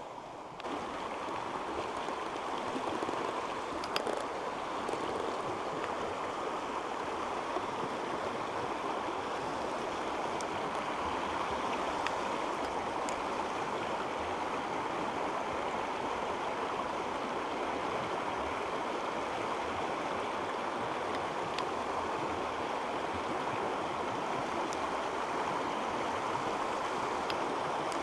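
Creek riffle running over stones: a steady rush of water that steps up abruptly under a second in and then holds, with a few faint clicks.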